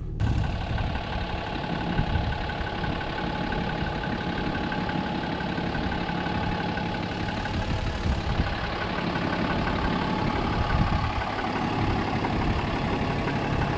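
Ram 3500's Cummins turbodiesel running steadily at low revs as the heavy truck crawls down a steep rock slope.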